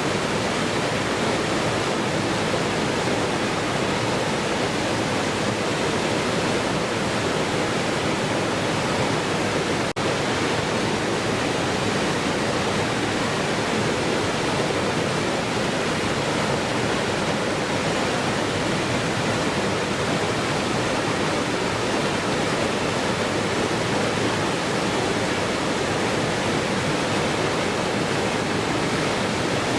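Waterfall rushing steadily, an even hiss with no breaks, briefly dipping for an instant about ten seconds in.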